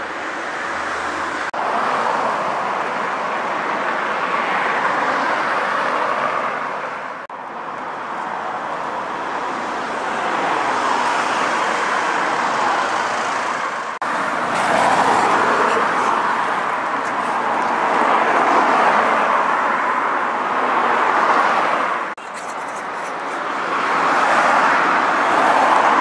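Street traffic: cars passing along a road, the noise swelling and fading as each goes by, broken by several abrupt cuts between clips.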